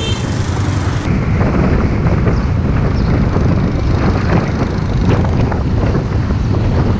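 Wind rushing over the microphone of a Yamaha Exciter 150 while riding, with the bike's single-cylinder four-stroke engine running underneath. About a second in, the high hiss drops away abruptly.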